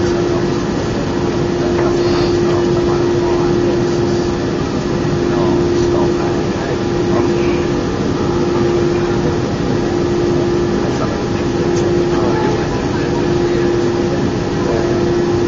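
Airbus A319 cabin noise: the engines and airflow give a steady loud drone with a constant hum running through it, and faint passenger voices underneath.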